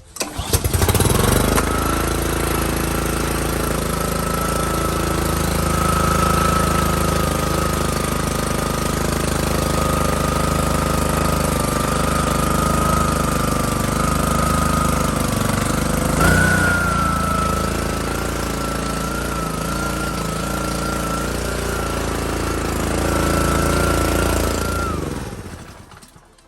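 Honda GCV160 single-cylinder engine on a pressure washer catching and running steadily with a high whine over the engine note, its carburetor freshly cleaned of a clogged jet. About 25 s in it winds down and stops.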